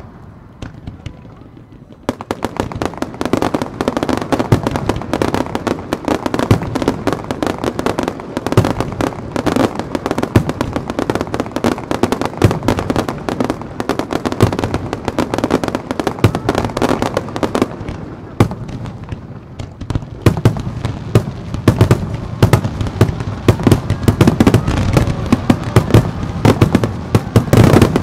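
Aerial firework shells bursting in rapid succession, a dense barrage of bangs and crackles. It picks up about two seconds in, eases briefly past the middle, then grows heavier again near the end.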